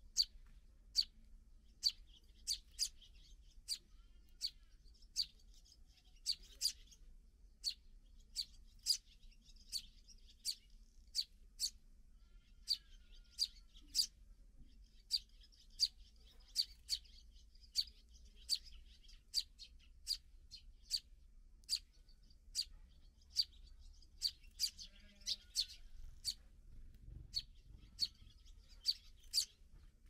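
Eurasian tree sparrows chirping: a steady string of short, sharp, high chirps, about one or two a second, with softer twittering between them.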